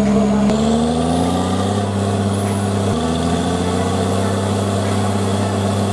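Truck-mounted borewell drilling rig with its Doosan air compressor, diesel engines running steadily and loud during drilling. The engine tone shifts in pitch at about half a second in and again near three seconds.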